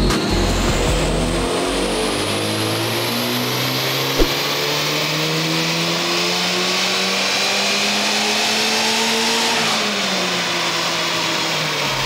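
Honda Civic Type R FL5's turbocharged 2.0-litre four-cylinder, on its stock airbox and a Milltek exhaust, making a full-throttle baseline pull on a chassis dyno. The revs climb steadily for about eight seconds, then drop away as the throttle is lifted near the end. There is a brief click about four seconds in.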